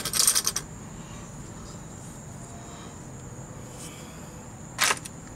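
Metal parts and tools handled inside an open axle differential housing: a brief clatter at the start, then a single sharp click shortly before the end, over a faint, steady, high-pitched tone.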